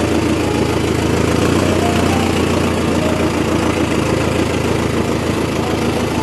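Mahindra Arjun Novo 605 DI tractor's four-cylinder diesel engine running steadily under light load as the tractor is driven slowly over a dirt track, heard from the driver's seat.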